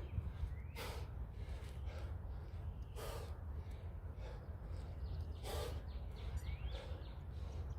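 A man's hard, forceful breaths during explosive jump lunges: three strong exhales about two and a half seconds apart, with fainter breaths between them, over a steady low hum.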